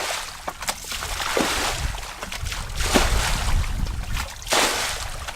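Water splashing and sloshing in repeated bursts, about one every second and a half.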